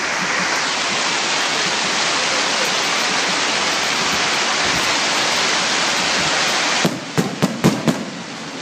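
Fireworks display: a steady, dense crackling hiss that cuts off suddenly about seven seconds in, then a quick run of sharp bangs and pops.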